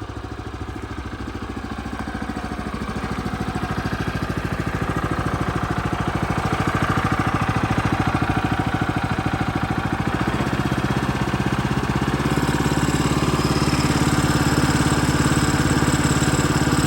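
Small gasoline engine of a Woodland Mills HM122 bandsaw mill running steadily just after starting, gradually getting louder, with its pitch stepping up about twelve seconds in. The band blade is not yet turning.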